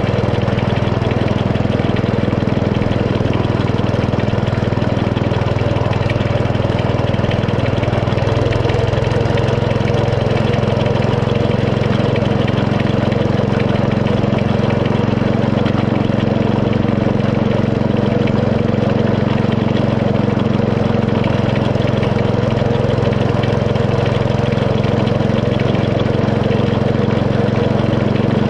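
Small engine of a 7¼-inch gauge miniature railway locomotive running steadily, heard from the train as it travels along the track.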